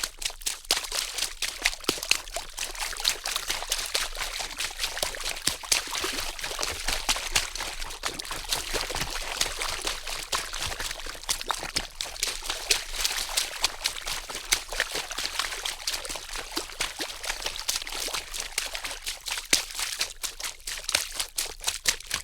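Water splashing continuously in a busy run of many small splashes and trickles, thickest in the middle, with more separate splashes near the start and end.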